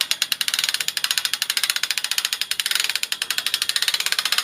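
Winch on a home-built well-drilling rig running as it raises and lowers the cradle, with a steady, rapid, even clatter of about twenty beats a second.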